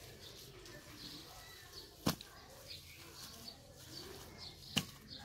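Hands mixing wheat straw into wet clay mud: faint handling noise, with two short sharp clicks, about two seconds in and near the end.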